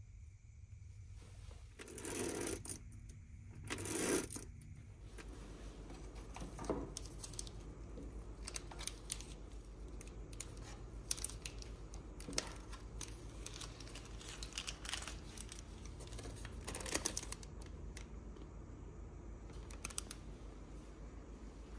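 Light clicks, taps and clatter of small boxed toiletries and packets being handled and knocked against clear plastic organizer trays, over a steady low hum. Two louder bursts of noise come about two and four seconds in.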